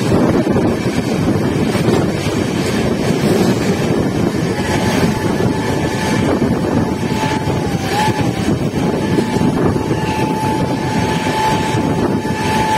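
Rushing rattle and wind of a passenger train's coaches passing close by at speed in the opposite direction, heard from another moving train. A thin high steady tone comes in about four seconds in and wavers briefly twice.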